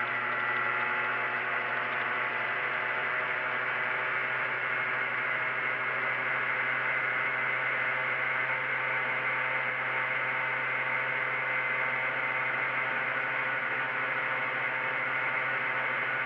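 Piaggio Ape 50's two-stroke single-cylinder engine running steadily under load in fourth gear, a constant drone heard from inside the cab.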